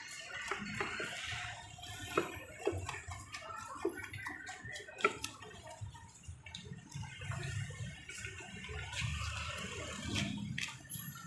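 Knife blade scraping scales off a wet fish on a wooden chopping block: a wet scraping with many quick clicks. The blade knocks sharply on the block about 2 and 5 seconds in.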